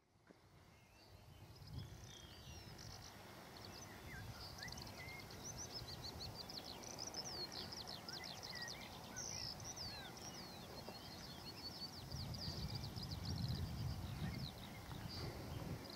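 Faint outdoor ambience fading in: many small songbirds chirping and singing over a low, even rumble that grows louder about twelve seconds in.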